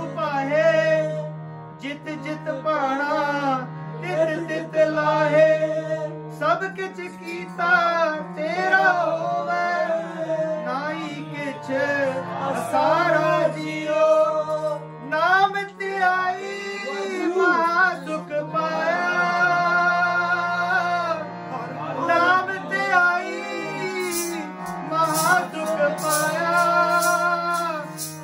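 Sikh kirtan: a man singing a long, gliding melodic passage without clear words over a steady harmonium drone, with tabla strokes coming in near the end.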